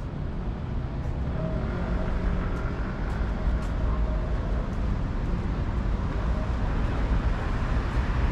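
Street traffic: a motor vehicle's engine running as a low rumble, growing steadily louder.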